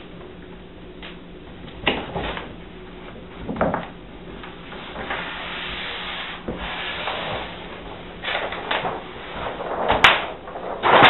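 Hands rubbing and pressing wet granite-pattern adhesive film onto a countertop corner: a series of short scraping swishes and a longer rubbing stretch midway through, with a sharp click near the end.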